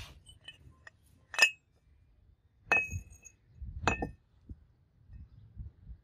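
Steel hydraulic jack parts clinking against each other and the concrete floor as they are handled. Three sharp metallic clinks, each ringing briefly; the loudest comes about a second and a half in, and the other two near three and four seconds.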